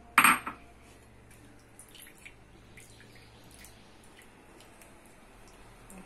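A short clatter of kitchenware about a quarter-second in. After it come faint scrapes and small ticks as a plastic spoon presses grated cucumber pulp against a stainless-steel mesh strainer, with the juice dripping into a dish below.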